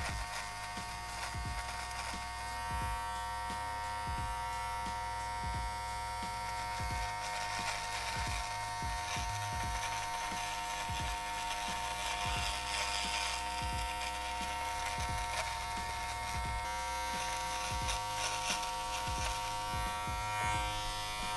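Brio Beardscape electric beard trimmer, fitted with its zero blade, running with a steady high hum while it cuts beard hair along the chin line, with light crackles of the blade on the hair.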